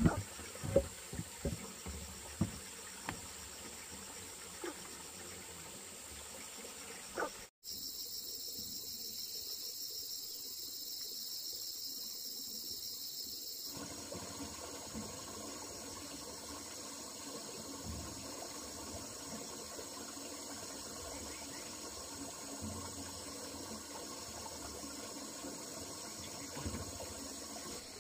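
Steady high-pitched chorus of insects. Several sharp knocks come in the first seven seconds, and there is a short drop-out a little after that.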